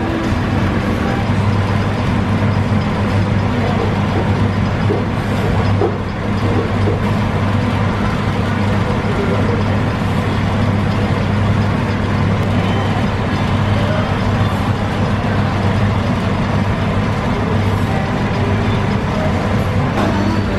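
Steady low machine hum under a constant wash of noise, with indistinct voices in it.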